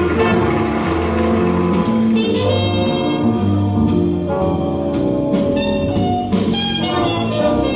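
Recorded music with sustained horn-like notes over a steady bass line, played back loud over YG Acoustics Carmel 2 loudspeakers.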